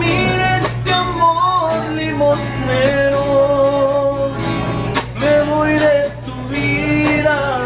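A man sings a Spanish-language song while strumming a steel-string acoustic guitar, holding a couple of long notes along the way.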